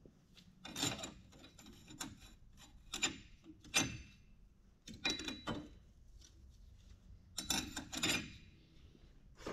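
Metal clutch plates scraping and clinking as they are worked by hand into a transmission clutch drum, in about eight short rasping strokes, a few with a brief metallic ring.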